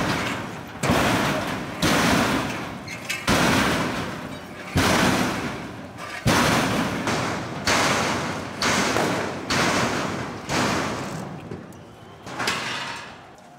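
About ten heavy bangs at a steady beat, roughly one every second or a little slower, each striking hard and dying away over about a second: a metal crowd barrier being rammed against a wall or gate.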